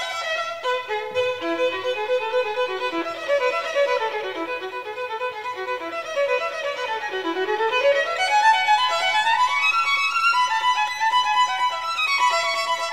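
Violin music playing quick runs of notes that sweep down in pitch and back up again several times.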